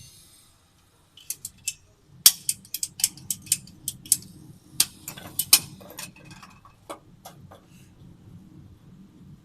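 A quick, irregular series of sharp clicks and taps, starting about a second in, densest over the next four seconds and thinning out after about seven seconds, over a faint low hum.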